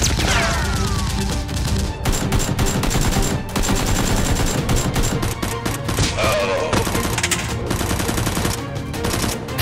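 Rapid bursts of automatic gunfire sound effects with background music underneath, plus a few falling whistling sounds.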